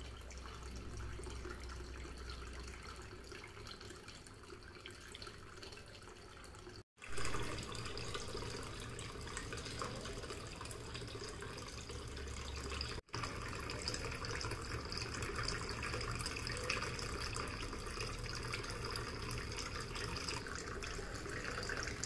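Water trickling and splashing steadily in a small tabletop cement waterfall fountain, falling from a spout into a cement bowl and from the bowl into the pool in its base. The sound cuts out for a moment twice.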